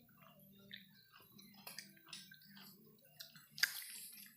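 Close-up wet, clicky mouth smacks of someone chewing a mouthful of buras rice cake, over a low steady hum. A louder sharp crackle and rustle comes near the end as the food on its banana leaf is handled again.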